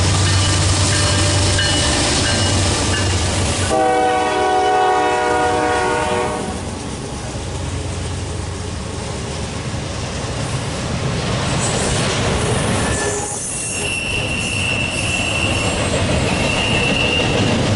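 Freight train locomotive's air horn sounding one long blast of about two and a half seconds over the rumble of the passing train. Rail cars then roll by, with a high steady wheel squeal near the end.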